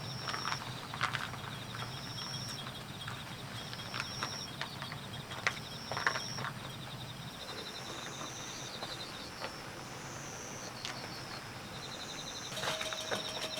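Night insects chirping in short repeated high trills, with a few scattered sharp taps.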